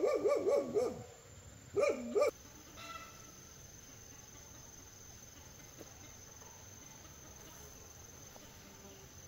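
An animal's loud call with a pitch that wavers up and down, heard twice in the first two and a half seconds. After that, a faint steady high chirring of insects.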